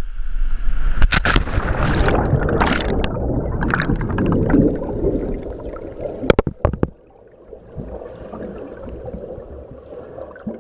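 Water splashing and gurgling, with several sharp knocks in the first half; it drops much quieter about seven seconds in.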